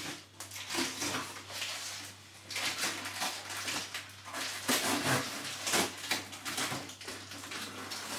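Plastic packaging rustling and crinkling as a parcel is unwrapped by hand, in uneven crackles with short pauses between.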